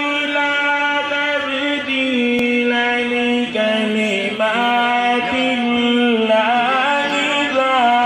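A man's voice chanting a devotional melody in long held, gliding notes over a steady low drone.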